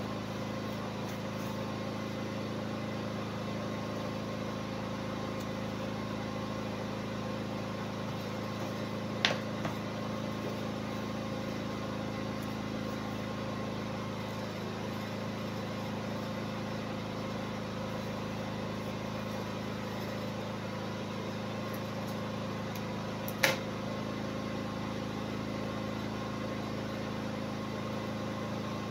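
Steady machine hum with a few fixed tones running unchanged, with two sharp clicks, one about nine seconds in and another about twenty-three seconds in.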